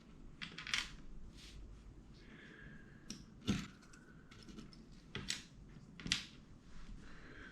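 Plastic LEGO Technic pieces clicking and rattling as they are picked out and set down, a string of irregular sharp clicks.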